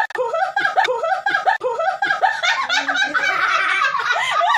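A woman laughing hard and high-pitched, in quick repeated bursts about three times a second.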